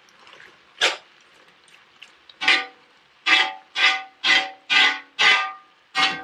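A metal spoon scraping across the bottom of a heavy oval pan of lamb and vegetables. One stroke comes about a second in, then steady strokes about twice a second from a couple of seconds in, each with a brief metallic ring.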